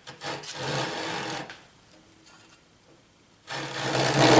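Back saw cutting through a thin strip of wood by hand, the blade sawing back and forth in the kerf. There is a run of strokes at the start, a pause, then a louder run from about three and a half seconds in.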